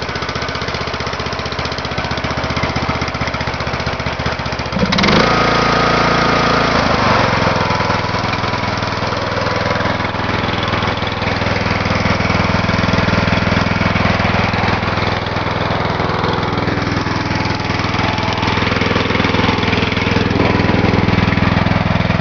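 Briggs & Stratton 17.5 overhead-valve lawn tractor engine running steadily. About five seconds in it gets louder and its note changes, then it settles into steady running.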